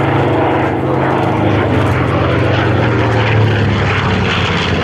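B-25 Mitchell's twin Wright R-2600 radial piston engines and propellers running steadily in flight, a loud, even drone.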